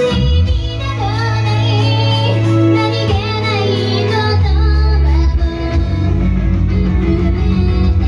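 Idol-pop song performed live: female voices singing over loud music with a heavy bass.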